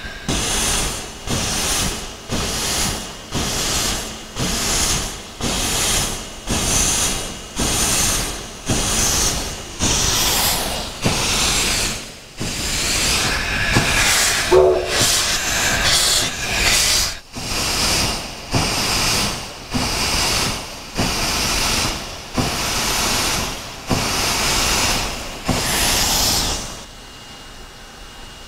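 Virginia & Truckee No. 29, an oil-fired 2-8-0 steam locomotive, chuffing slowly as it pulls ahead with its cylinder cocks open to warm up the cylinders, each beat a rush of hissing steam. The beats come about one a second, quicken a little, and stop suddenly near the end.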